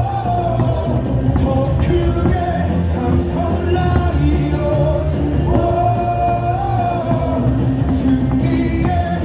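Baseball stadium crowd singing a team cheer song together over loud amplified backing music.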